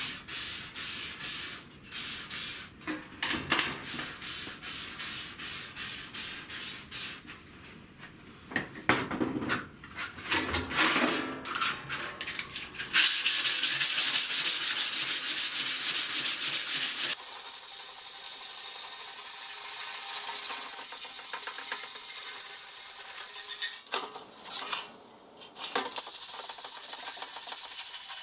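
Abrasive rust removal on the steel of an old jerry can: irregular scrubbing and rubbing strokes at first, then a steady, even abrasive hiss from about halfway, broken only by a short pause near the end.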